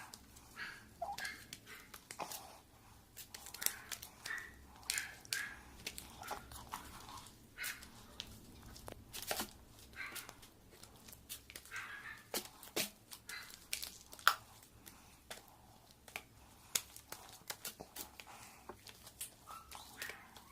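Sticky bead slime being kneaded by hand: quiet, irregular sticky clicks, pops and small tearing sounds as it pulls apart.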